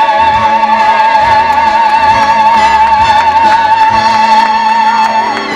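Musical-theatre cast and orchestra holding one long high sung note with a wide vibrato over the accompaniment. The note cuts off about five seconds in.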